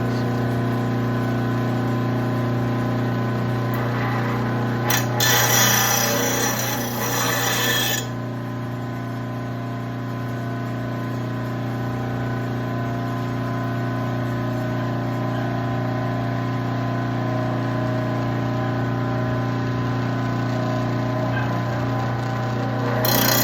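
Electric mower-blade sharpener running with a steady motor hum. About five seconds in, a steel mower blade is pressed against the grinding wheel for some three seconds, a harsh grinding hiss, and grinding starts again right at the end.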